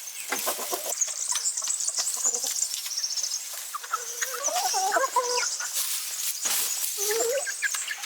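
Chickens clucking in short, wavering calls that come thickest about four to five seconds in and again near the end.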